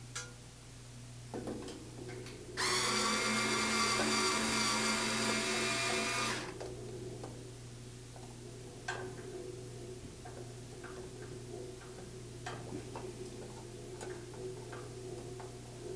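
Small cordless power screwdriver running for about four seconds with a steady high whine, turning a screw at a band saw's switch box. Light clicks and handling knocks come before and after, over a faint steady hum.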